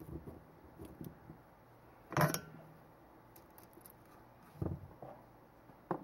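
Small clicks and knocks of parts and tools being handled on a workbench: an XT-60 connector clamped in the alligator clip of a helping-hands stand, then the soldering iron picked up. Two sharper knocks stand out, about two seconds in and just before the five-second mark.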